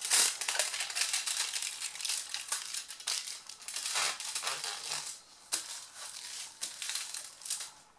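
Aluminium foil crinkling as a sheet is folded over by hand and the crease pressed flat with the fingers. It comes as an irregular run of short crackles, dying down briefly about two-thirds of the way through.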